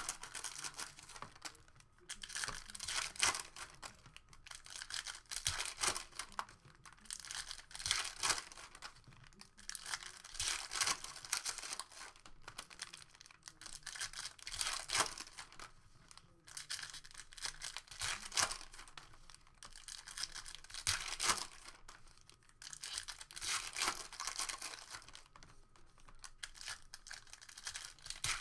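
Foil trading-card pack wrappers of Panini Donruss Optic basketball cards being torn open and crinkled by hand, in repeated bursts every two to three seconds.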